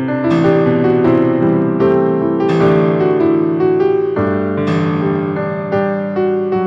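Background music: a piano or electric-piano tune, notes struck every half second or so.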